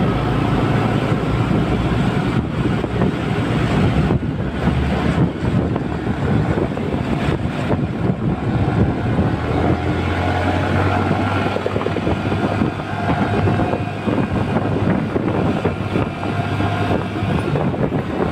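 Motorcycle running steadily while being ridden, with its engine hum under wind rushing over the microphone.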